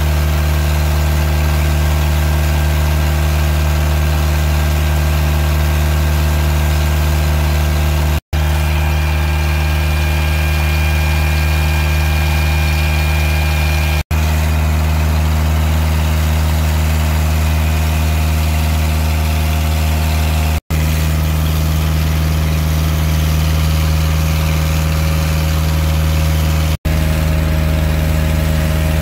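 Fishing boat's engine running steadily as the boat cruises through the water, a constant low drone broken by four brief gaps.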